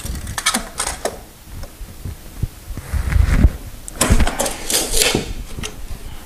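Handling noises while measuring and marking a laminate plank: a tape measure's metal blade rattling as it is pulled out and let back, with scattered knocks, a low thump and scrapes from hands and a pencil on the plank and subfloor.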